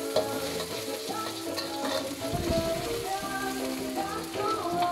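Food sizzling as it fries in a wok, with a spatula scraping and stirring it, under background music.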